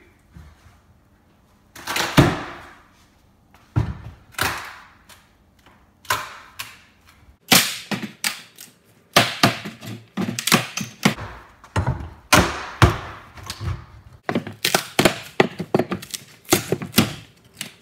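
Laminate (Formica) countertop edge strip being pried off with a pry bar, cracking and snapping away from the counter edge in a series of sharp cracks and knocks. A few come spaced apart at first, then they come about every half second in the second half.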